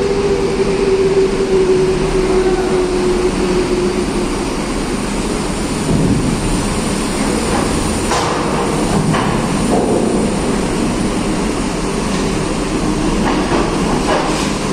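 Coach's diesel engine running as it drives up a ferry's steel loading ramp, with a handful of metallic clanks between about six and ten seconds in and again near the end as the wheels roll over the ramp plates.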